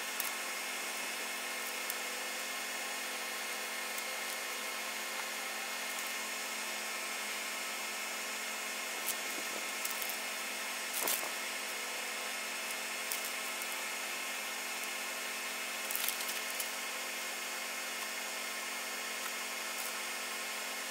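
Steady background hiss and hum, with a few faint rustles and taps of plastic stencil film being peeled from its backing and pressed onto a book's page edges.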